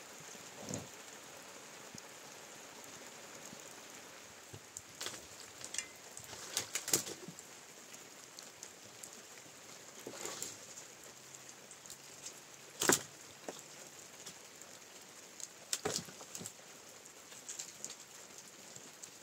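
Steady rain falling, with scattered sharp knocks and taps over it, the loudest about two-thirds of the way through.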